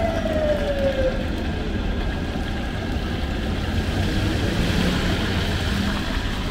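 Roadside street noise: a steady rumble of traffic, with a siren-like tone that slides down in pitch and dies away about a second in.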